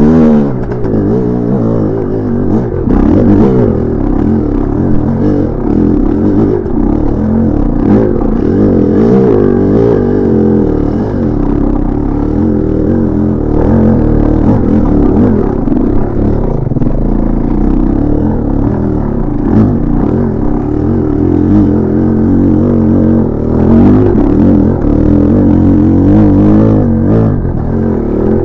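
1986 Maico 500 two-stroke single-cylinder dirt bike engine revving up and down under throttle over and over as it is ridden along rough trail, with clatter and knocks from the bike working over the ground.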